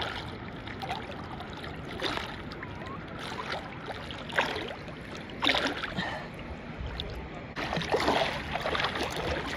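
Water sloshing and splashing close to the microphone: a steady wash broken by several brief splashes, most of them near the end.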